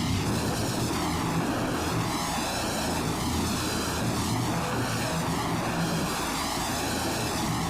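Experimental noise music: a dense, steady wall of hissing, droning noise swept by a jet-like flanger effect that repeats about once a second, with a low hum underneath.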